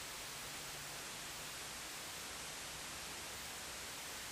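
Steady, even hiss with no other sound: static from the plane's analog FPV video link, with its electric motor stopped (0.0 A) and the plane at rest in the reeds.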